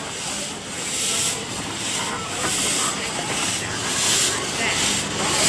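Narrow-gauge steam locomotive running slowly past at close range, its steam exhaust hissing in regular chuffs about two a second, with the rumble of its coaches on the rails beneath.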